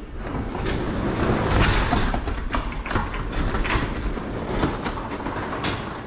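Wooden sectional garage door being lifted open by hand on freshly wound torsion springs, its rollers rumbling and clicking along the steel tracks. The rumble eases off near the end as the door comes fully open.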